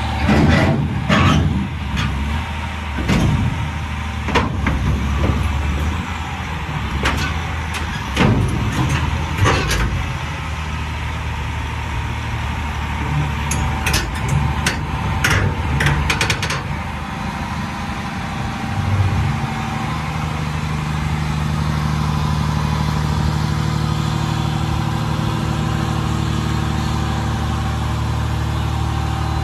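LiuGong 950E crawler excavator's diesel engine running, with repeated sharp knocks and clanks of steel tracks and bucket against rock through the first half. From about two-thirds of the way in, the engine runs steadier and harder as the machine moves.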